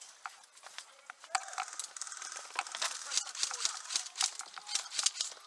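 Tarpaulin and camouflage netting rustling and crinkling as a player pushes through them, with irregular sharp clicks and snaps several times a second.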